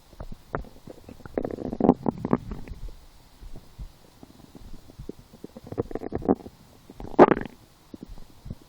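A woman's stomach gurgling and rumbling in irregular bursts: one cluster of gurgles between about one and a half and two and a half seconds in, another around six seconds, and the loudest, short gurgle about seven seconds in. She takes these noises for hunger.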